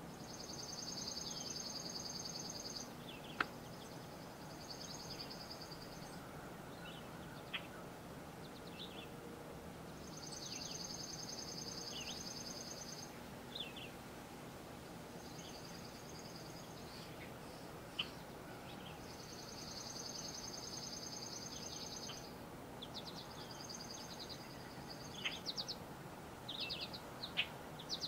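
Woodland songbirds singing: a high, dry trill of about three seconds repeats every few seconds, mixed with short, high, down-slurred chirps from other birds that grow busier near the end, over a steady faint background hiss. Two sharp single ticks stand out, a few seconds in and about halfway through.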